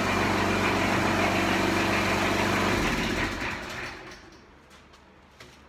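Harbor Freight 6.5 horsepower single-cylinder engine running steadily on a pitman arm log splitter, then shutting down about three seconds in and winding down to a stop. A few faint clicks follow near the end.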